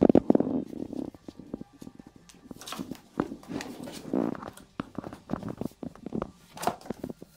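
Puppies at play: a loud play-growl trails off in the first half-second, followed by light taps, scuffs and cardboard scrapes as a puppy paws and noses a box on carpet, with a few more short growls.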